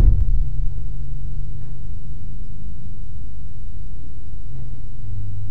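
A single sharp thump right at the start, then a steady low rumble with a faint low hum.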